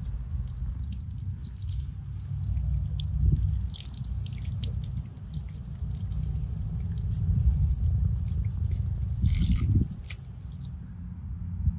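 Water dripping with small wet ticks and a brief louder splash near the end, over a low steady rumble.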